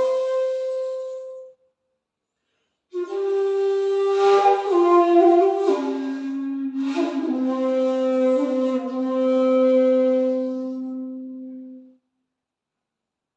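Handmade 2.8 jinashi shakuhachi playing a slow, breathy phrase: a held note fades out, then after a pause of near silence a phrase of long notes steps downward and settles on a long low note that fades away.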